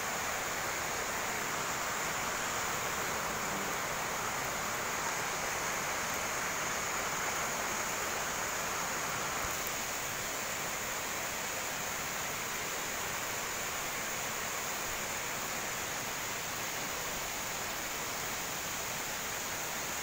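Small waterfall falling onto rocks: a steady, even rush of water, a little quieter about halfway through.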